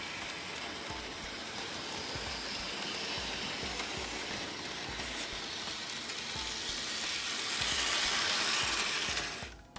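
Model train locomotives running on the layout track: a steady whir of small electric motors with quick light ticking from the wheels on the rails. It cuts off abruptly near the end.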